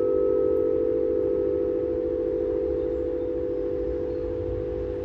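Quartz crystal singing bowls ringing on after being played, a steady low hum of several close tones with a slow wavering beat, slowly fading. A higher overtone dies away about two seconds in.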